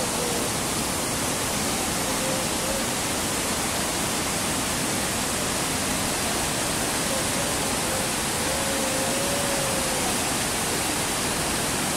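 Whitewater river rapids: water rushing steadily over rocks, an even, unbroken rush.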